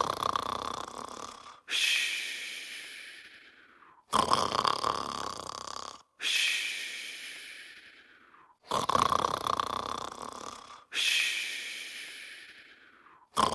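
Snoring: a rough snoring in-breath about every four and a half seconds, each followed by a long breathy out-breath that fades away. Each sound starts and stops abruptly, as in an edited loop.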